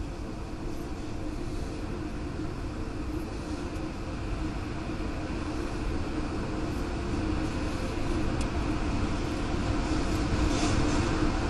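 Tornado winds: a steady, low, train-like rush of noise that grows gradually louder.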